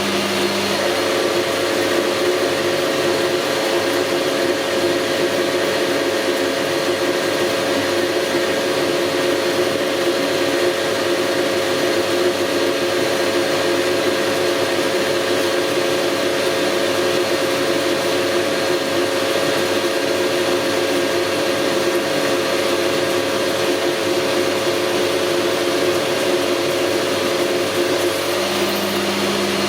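Metal lathe running steadily under power, most likely turning or facing the steel plate. Its hum steps up in pitch about a second in and drops back near the end.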